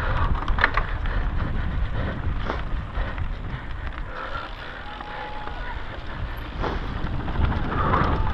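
Mountain bike ridden fast over dry dirt singletrack, with wind rumbling on the camera microphone and the tyres and rattling bike giving many short sharp clicks. It is louder near the start and again near the end, and eases off in the middle.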